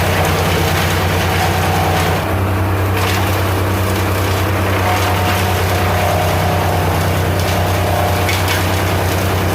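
Brush chipper running at full speed while chipping brush: a steady engine drone under the constant noise of branches being shredded.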